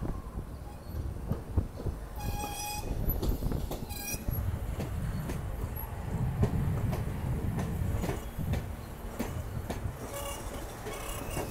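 R160B subway train rolling into and along an open-air station platform: a steady low rumble of steel wheels on track with rail-joint clicks. There is a short horn toot about two seconds in and a briefer one around four seconds. A high-pitched wheel squeal comes in near the end.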